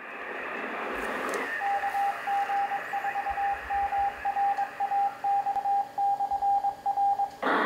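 Receiver static from an Icom HF amateur radio transceiver: a hiss that fades up at the start. From about one and a half seconds in, a Morse code signal rides over it: a single steady tone keyed on and off in dots and dashes.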